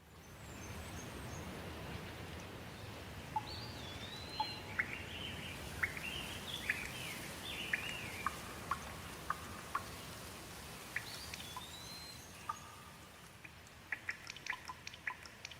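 Steady rain with birds singing over it: a series of short, curving whistled phrases through the middle, then a run of sharp ticks near the end.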